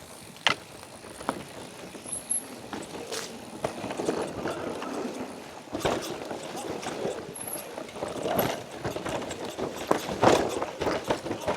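Mountain bike being ridden over a rocky, technical trail: a running rumble of tyres on rock and ground, with frequent irregular knocks and rattles from the bike.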